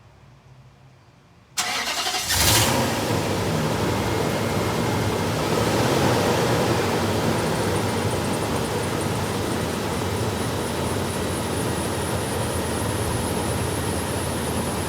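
2005 Nissan Titan's 5.6-litre V8 starting about a second and a half in, flaring briefly as it catches, then running steadily.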